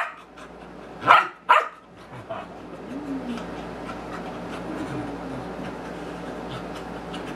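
A dog barking twice in quick succession about a second in, short and loud, then only quieter, low sounds.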